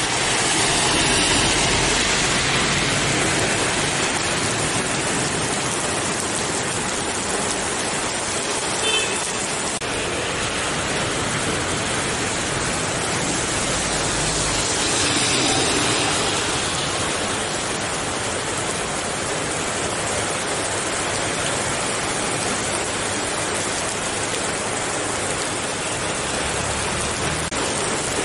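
Heavy rain pouring steadily onto a flooded road, a constant hiss. Vehicles swish through the standing water, and the sound swells as one passes about a second in and again about halfway through.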